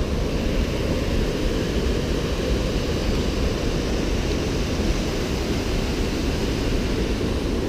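River water rushing over rocky rapids and a small falls: a steady, even rush of white water, deep and unbroken.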